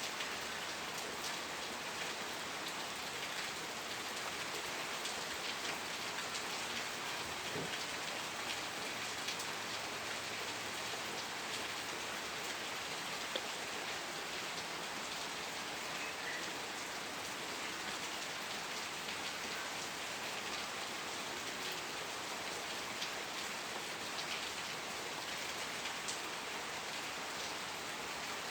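Steady rain falling on a surface, an even hiss with many small drop ticks through it.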